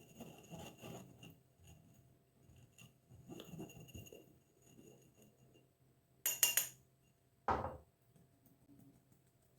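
Kitchen utensils and a mixing bowl being handled while flour is added to cake batter: light scraping, then a sharp clink about six seconds in and a duller knock just after.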